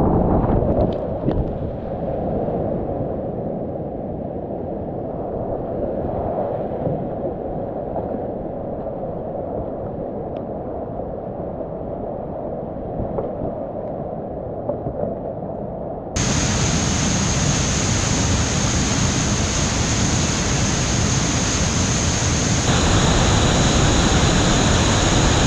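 Whitewater rapids rushing, muffled from a camera on a kayak, then about sixteen seconds in a sudden cut to the louder, brighter roar of a waterfall with a steady high tone over it.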